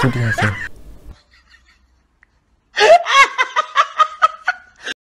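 A man laughing hard: loud, high-pitched bursts of laughter in quick succession, about five a second, starting suddenly after a brief silence.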